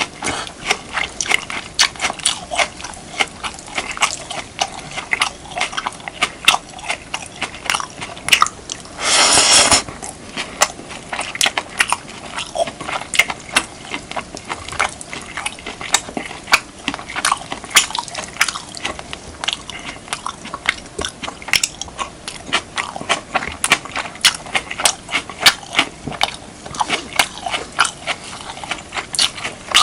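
Close-miked eating of beef, kimchi and rice: wet chewing and mouth clicks, several a second, irregular. About nine seconds in, a louder rushing noise lasts about a second.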